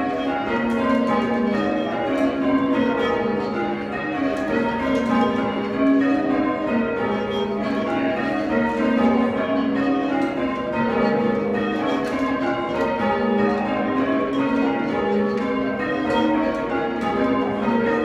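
Full-circle change ringing on a ring of six church bells cast in 1789 by Robert Dalton, the strokes following one another in a continuous pattern with overlapping tones. Rung together, the bells have a soft tone.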